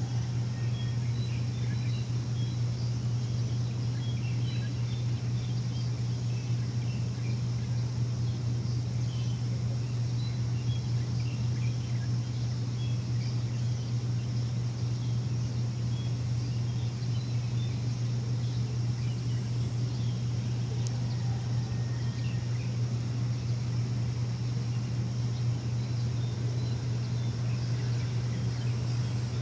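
A steady low machine hum that holds unchanged throughout, with small birds chirping faintly and sporadically over it.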